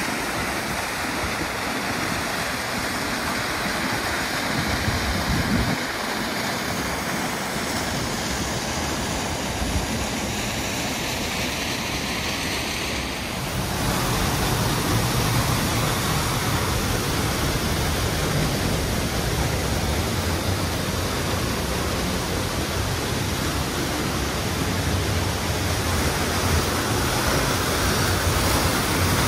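Rifle Falls waterfall pouring: a steady rush of falling water. About halfway through it turns louder and deeper, heard from close behind the falling curtain of water.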